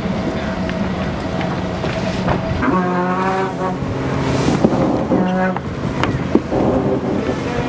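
Boat noise: a steady low motor drone under wind and water rush. About three seconds in comes a pitched tone about a second long, and a shorter one near five seconds.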